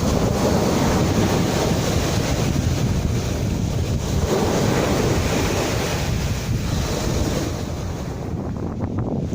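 Sea waves washing, with wind buffeting the microphone in a low rumble; the hiss thins out a little near the end.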